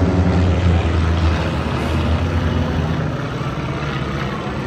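Aircraft engine drone as a plane passes at an air show, loud at first and fading after about three seconds.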